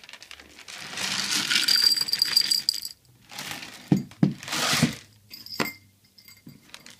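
Rattling and clinking of small hard objects in two noisy spells, then a single sharp click.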